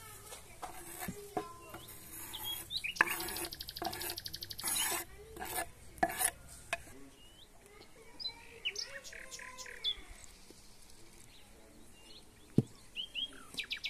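Kitchen knife scraping and tapping chopped nettle leaves off a wooden cutting board into a cooking pot: a run of sharp scrapes over the first seven seconds, then quieter. Small birds chirp throughout.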